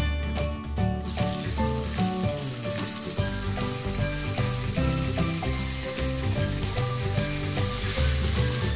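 Hot oil sizzling as a small egg-battered piece of fish fries in a miniature wok. The sizzle starts about a second in, when the fish goes into the oil, and continues over background music.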